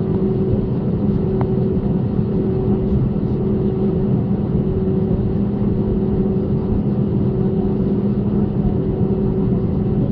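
Jet airliner's turbofan engines running at low taxi power, heard inside the passenger cabin as a steady hum with two droning tones.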